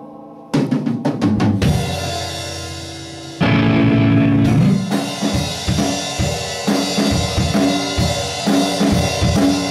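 Live rock band of drum kit, bass guitar and electric guitar playing. About half a second in comes a quick drum fill with a chord left ringing and fading, then a little past three seconds the full band comes in loud with a steady beat.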